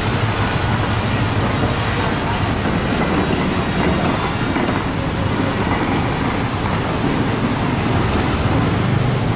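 Street traffic dominated by motor scooters and motorbikes riding past close by, a steady mix of small engines running.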